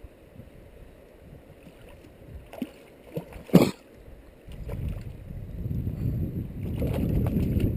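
Hooked trout splashing at the water's surface close to the bank, with one sharp splash about three and a half seconds in. About halfway through, a low rumbling noise sets in and grows.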